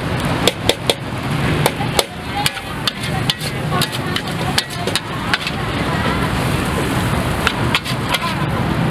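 Metal spatula clacking against a wok during stir-frying: a dozen or so irregular sharp clacks over steady background noise.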